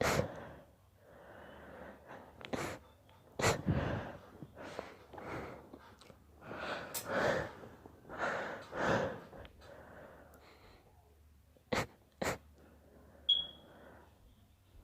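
A man's induced sneezing fit: a series of sharp sneezes, two of them in quick succession near the end, with gasping, wheezy breaths building up between them. There is a brief high squeak just after the last pair.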